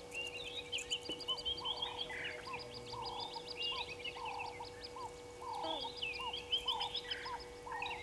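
Several wild birds calling at once. One chatters a fast run of short, high notes, and beneath it another call repeats about twice a second. A faint steady hum runs underneath.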